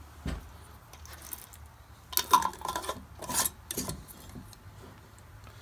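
Metal lid being screwed onto a glass mason jar: a few short scraping, grating sounds from the threads about two, three and a half and four seconds in.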